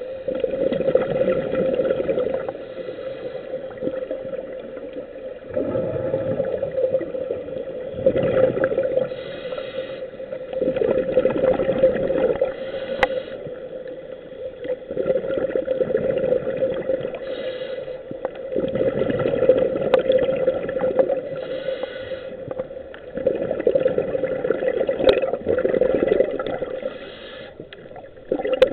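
Scuba diver's regulator breathing, heard underwater: a breath cycle every few seconds, each exhale a loud rumble of bubbles and each inhale a quieter hiss.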